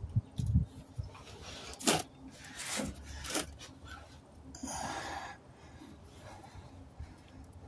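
A few short knocks and rubbing as a hand presses and works the new fuel pump module into place in the fuel tank opening. A couple of sharp, noisy breaths from the man as he strains.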